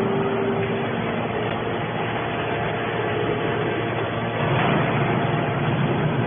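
Scrap metal baler running, a steady machine hum with a few held tones, growing a little louder about four and a half seconds in.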